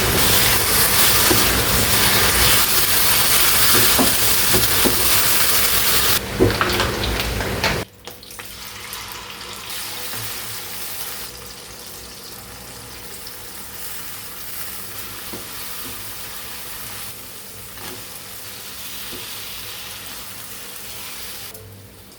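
Food sizzling as it fries in a pan, with scattered clicks of a utensil stirring. The sizzle is loud at first and drops suddenly to a much softer hiss about eight seconds in.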